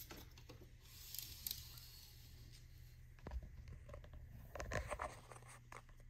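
Faint scraping and clicking of a steel tape measure being handled and held against a motorcycle's swingarm and rear axle, with a few louder clicks about three and a half and five seconds in, over a low steady hum.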